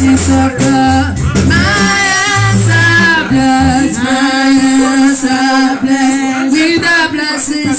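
A man's voice singing a church praise song into a microphone, over a bass line and light percussion. The bass stops about three seconds in, leaving the voice and percussion.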